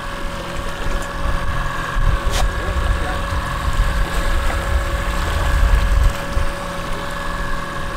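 Boat engine running steadily with a constant hum, and wind rumbling on the microphone, heaviest from about two to six seconds in.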